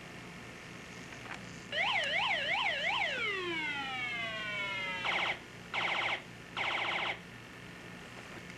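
Police-style siren: four quick rising-and-falling wails about two seconds in, then a long falling wind-down, then three short blasts.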